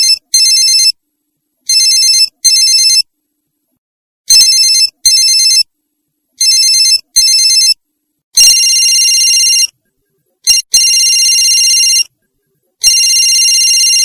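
Old Nokia mobile phone's monophonic ringtone: a buzzy electronic beep at one steady pitch, first in four pairs of short beeps about two seconds apart. About eight seconds in it changes to longer beeps, each lasting over a second.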